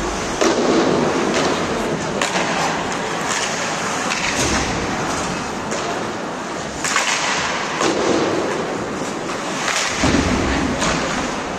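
Ice hockey play: skate blades scraping the ice, with sharp clacks of sticks and puck every second or two, and shouts from players or spectators.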